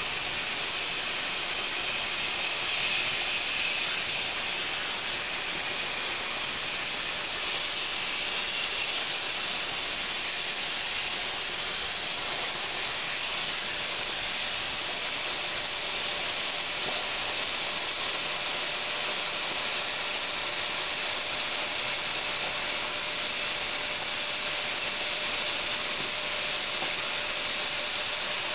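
Oxy-fuel cutting torch on a CNC cutting machine, hissing steadily as it cuts through 15 mm steel plate.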